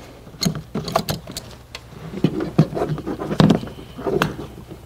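Irregular clicks, taps and light rattles of a pressure-gauge hose and fitting being handled and pushed onto a hose in the engine bay. Under them runs the steady low hum of the VW Jetta TDI diesel engine idling.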